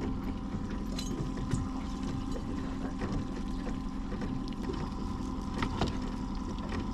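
Fishing boat's motor running steadily at trolling speed, with water noise and a few light knocks.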